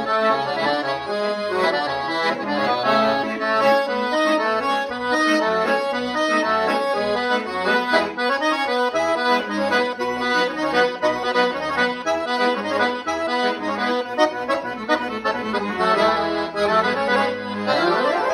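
Piano accordion played solo: a fast melody of quick notes on the treble keys over evenly pulsing bass notes, with a quick rising run near the end.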